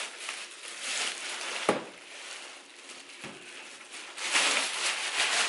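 Clear plastic bag crinkling and rustling as it is pulled up off a computer case, with a sharp click about a second and a half in and a louder stretch of crinkling near the end.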